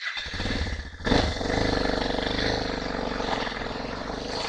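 Suzuki DR650 single-cylinder four-stroke engine running; about a second in it revs up sharply as the bike pulls away, then runs steadily as the bike rides off.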